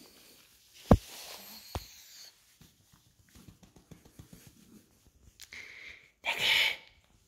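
A hand stroking a cat's fur and handling the phone: a sharp knock about a second in, a smaller one shortly after, then faint rustling and ticks, and a short breathy hiss near the end.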